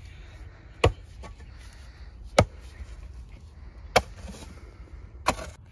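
A digging tool chopping into soil four times, about every second and a half: digging holes for planting seedlings.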